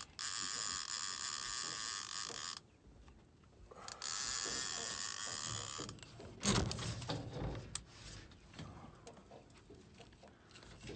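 Fishing reel's drag buzzing as line is pulled off by a hooked blue catfish, in two runs with a short pause between them. A heavy thump about halfway through, followed by small knocks.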